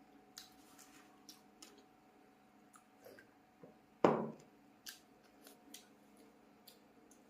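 Close-miked eating sounds of rice and curry: scattered small, sharp mouth clicks and chewing, with one much louder, sharp sound about four seconds in.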